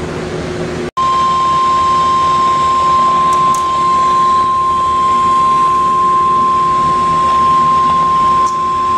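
NOAA Weather Radio 1050 Hz warning alarm tone: one long, steady, high beep that starts after a brief dropout about a second in, over the radio's low hum and hiss. The tone signals that a warning message is about to be broadcast.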